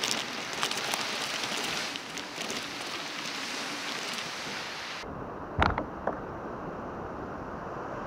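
Kayak cart wheels rolling over sand and shells with the loaded kayak rattling: a dense crackling hiss that stops suddenly. A loud knock follows, then a smaller one, and after that a steady wind-and-surf hiss.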